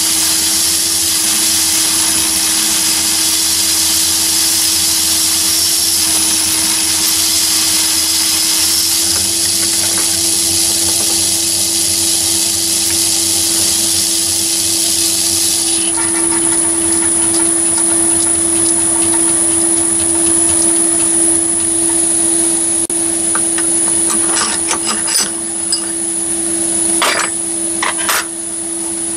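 Myford lathe running while an ordinary twist drill cuts into aluminium bar, then the drill is backed out. About sixteen seconds in the high hiss drops away, leaving a steady hum, and a few sharp knocks come near the end.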